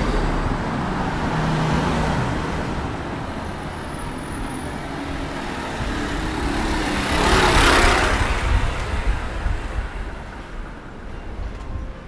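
Street ambience with a car driving past close by. Its tyre and engine noise swells to a peak about two-thirds of the way through, then fades away.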